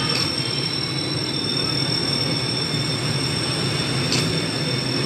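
Steady rumble of street traffic with a constant thin high-pitched tone over it, and two faint ticks, one at the start and one about four seconds in.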